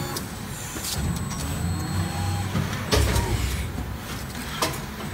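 High-speed plastic-spoon injection molding machine and its take-out robot arm running, with a steady low mechanical rumble and a few sharp clacks spaced a second or two apart as the arm and mold move.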